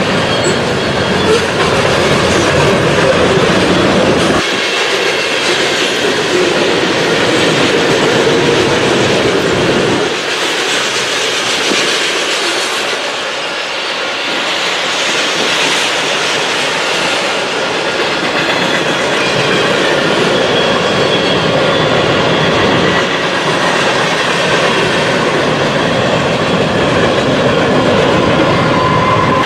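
Freight cars rolling past at close range, their steel wheels rumbling on the rails. Faint steady wheel squeal comes in during the second half.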